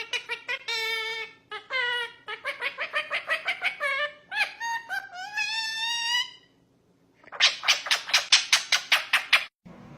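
An animal's repeated high-pitched calls: quick squeaky cries, some rising in pitch, then after a brief pause a fast run of sharp, harsh calls that stops just before the end.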